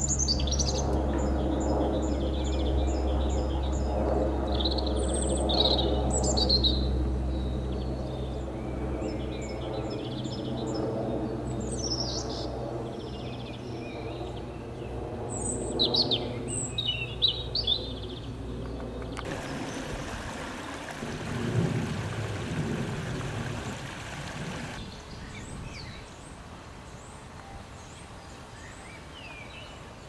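A songbird singing short, varied high phrases and trills with pauses between them, the phrases thinning out in the second half. Beneath it a low, steady mechanical hum is loudest early on and fades away about halfway through.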